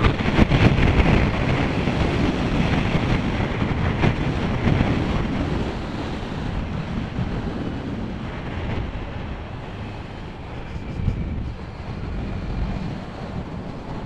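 Wind rushing over a motorcyclist's helmet microphone while riding a Kawasaki Z900, with the bike's road and engine noise underneath. It grows gradually quieter over the first ten seconds or so.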